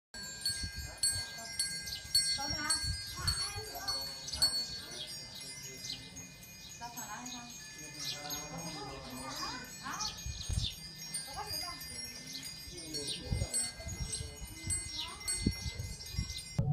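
Chimes tinkling: many small bell-like strikes over sustained high ringing tones, starting abruptly.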